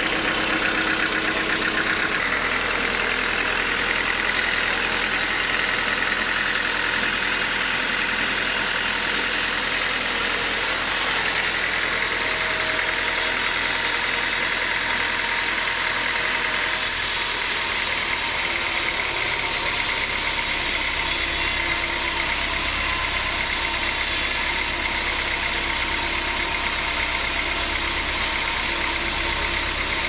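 Large band sawmill running steadily as its carriage feeds a huge log through the band saw blade, with a low rumble growing stronger about twenty seconds in.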